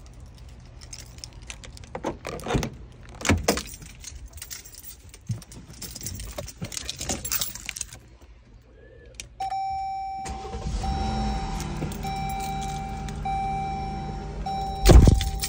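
Keys jangling and clicks as a car is entered, then about nine seconds in a car's warning chime starts sounding in a steady repeating pattern and the engine starts a moment later and idles under it. A loud thump near the end.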